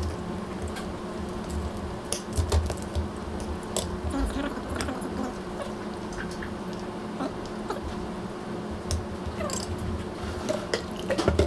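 Scattered light clicks and taps of tableware and eating at a restaurant table, over a steady low hum.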